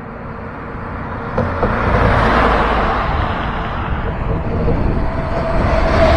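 A heavy truck driving past close by. Its engine and tyre noise builds up over the first two seconds and stays loud, and a steady whine comes in near the end.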